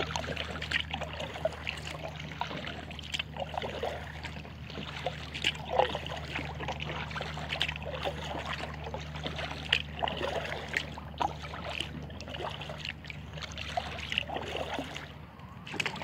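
Kayak paddle strokes in the water, with irregular splashes and drips from the paddle blades. A steady low hum runs underneath.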